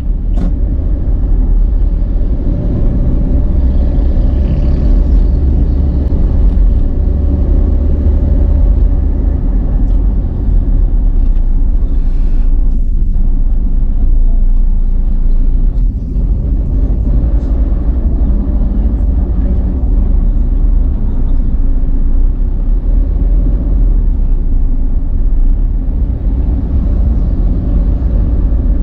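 A car driving along the road, recorded by a dash camera: a steady low rumble of engine and tyre noise with no marked changes.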